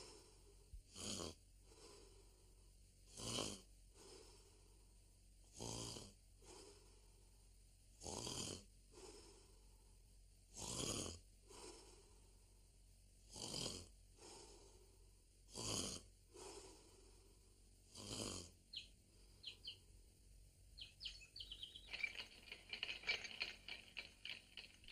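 Cartoon snoring, loud and regular: eight snores, one about every two and a half seconds, that stop about three-quarters of the way through. In the last few seconds a growing run of short, high chirps follows.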